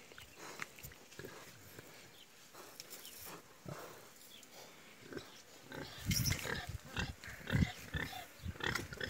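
A pregnant sow rooting in loose dirt with her snout and making short pig sounds. The sounds come louder and closer together from about six seconds in.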